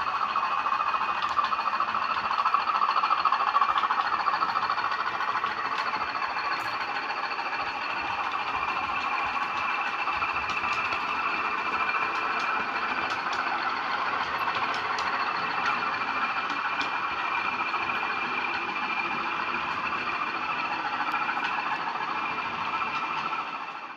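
Bachmann Class 20 model diesel locomotive's DCC sound decoder playing the engine-running sound through its small onboard speaker, with a steady high whine over the engine noise, as the model runs on the track. The sound cuts off suddenly at the end.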